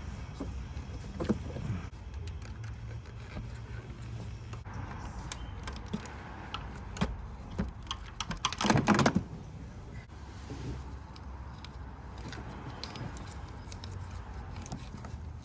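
Hand tools clicking and clinking against metal engine parts, with a louder metallic rattle about nine seconds in, over a steady low hum.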